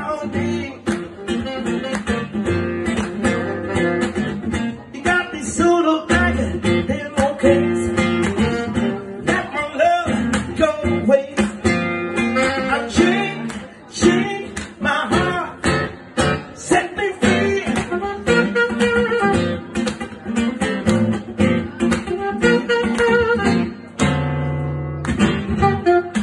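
Live acoustic guitar and tenor-range saxophone duo playing: the guitar strums and picks a steady accompaniment while the saxophone carries a flowing melody.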